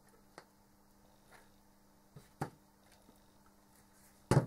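Quiet workbench handling while hot glue is laid around a plastic duct plate: a few faint clicks and a knock, then a sharp thud near the end as the hot glue gun is set down on the bench.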